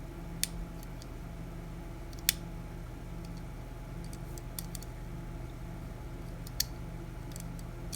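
Small sharp clicks and light ticking from the parts of a wall-clock movement being handled, with three louder clicks spread through. A low steady hum sits underneath.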